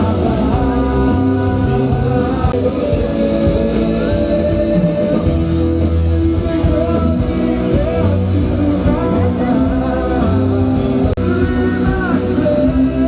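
Rock band playing live with a singing voice over electric guitar, bass and drums.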